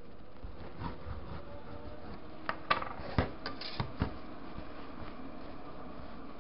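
Small handling sounds on a tabletop: a few sharp taps and clicks between about two and a half and four seconds in, as a plastic set square and a piece of tailor's chalk are put down, amid light fabric handling.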